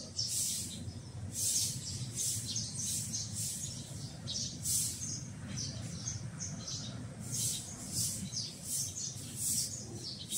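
Small birds chirping: short, high chirps repeating irregularly, about one or two a second, over a steady low background rumble.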